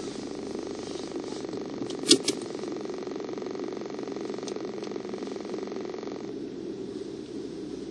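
Steady hum of a stationary car heard from inside its cabin, its engine idling, with two sharp clicks about two seconds in.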